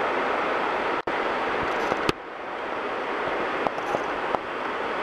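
Steady noise of a steam locomotive running by, with no clear exhaust beat. The sound drops out briefly about a second in and changes abruptly at about two seconds, where the video is cut.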